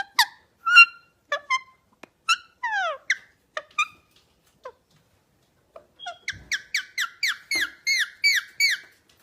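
Pet parrot calling: scattered short chirps and falling squeaks, then from about six seconds in a fast run of sharp squawks, about four a second.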